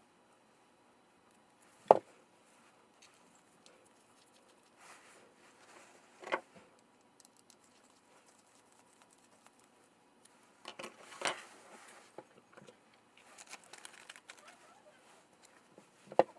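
Small parts being handled on a workbench: four sharp knocks a few seconds apart, with quieter clicks, scraping and rustling between them.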